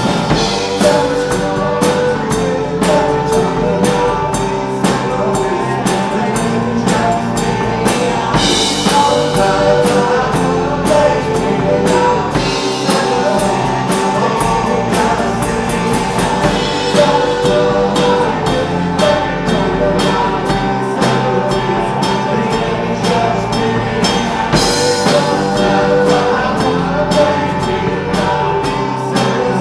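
Rock band playing, with a steady drum-kit beat under guitar.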